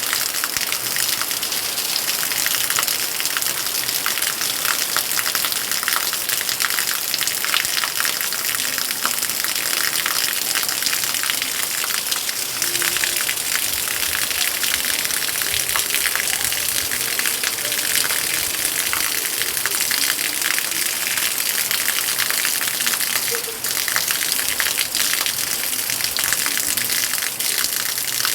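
Heavy rain pouring steadily, a dense, even hiss of drops.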